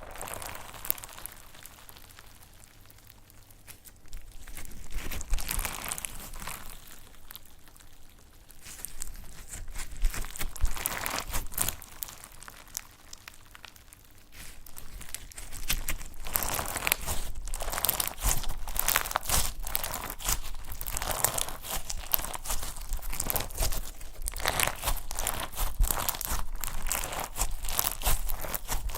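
Slime being squeezed, pressed and stretched by hand, giving a dense crackling and crunching made of many small clicks. It comes in louder spells with a couple of quieter lulls.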